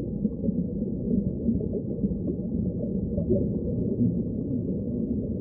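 Muffled underwater ambience: a steady, deep rushing wash of water with no high sounds in it.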